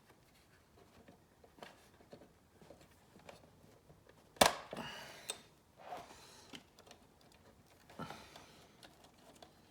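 Hands handling the parts of a cassette four-track recorder during disassembly: scattered small clicks and rustles, with one sharp click about four and a half seconds in followed by a brief rattle of handling.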